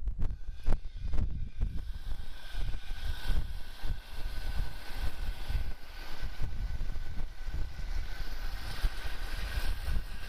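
Wind buffeting the microphone in uneven gusts, over a steady hiss that comes in about two seconds in and holds to the end, with a faint constant tone inside it.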